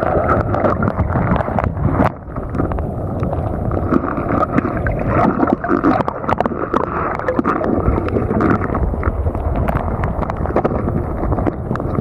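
Water sloshing and gurgling while wind buffets the microphone, with a steady crackle of gusts and splashes.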